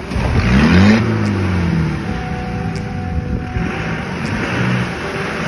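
Land Rover Defender 90 engine revving up sharply in the first second, then easing back and running steadily as it drives through deep mud ruts.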